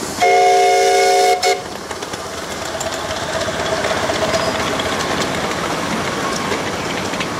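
Miniature 7¼-inch gauge steam locomotive sounding its chime whistle: one loud blast of about a second, a short toot right after, then the locomotive and its wagons running past on the track.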